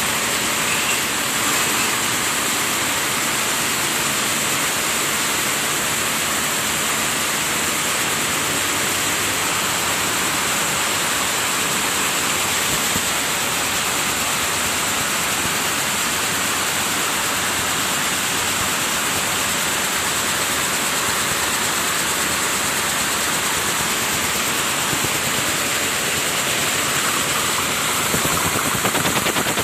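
Weaving shed full of running looms, Toyota JAT710 air-jet and Picanol: a loud, steady din of fast mechanical clatter from many machines at once. Near the end the clatter grows louder and sharper as a single loom is passed up close.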